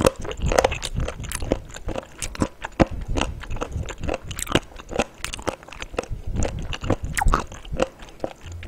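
Close-miked chewing of a whole raw abalone: a dense, irregular run of crunches and clicks as the firm flesh is worked between the teeth, slow going because the piece is eaten whole rather than sliced.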